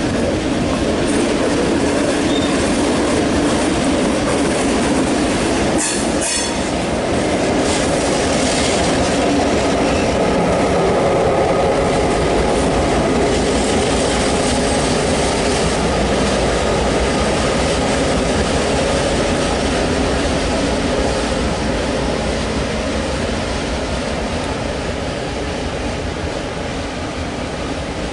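NSW 42 class diesel-electric locomotive 42103 running light past at low speed, its EMD sixteen-cylinder two-stroke diesel engine loud and steady, with a few clicks from the wheels over rail joints about six seconds in. The sound fades near the end as the locomotive moves away.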